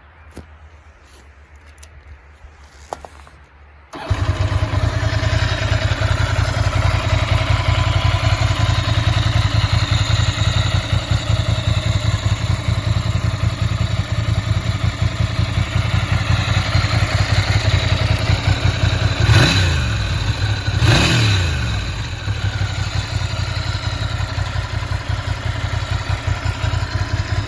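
Ducati Monster 600's air-cooled L-twin on its stock exhaust starting up about four seconds in and idling with an even, lumpy beat. Two short throttle blips a little past the middle rise and fall in pitch before it settles back to idle.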